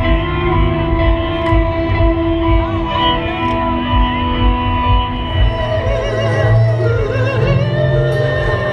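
Music with a steady beat under sustained held tones. A wavering melody line comes in about six seconds in.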